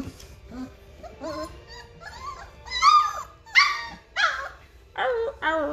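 Three-week-old Great Bernese puppies yipping and whining in a string of short, high calls that bend in pitch. The calls get louder from about three seconds in. These are the first attempts of young pups finding their voices.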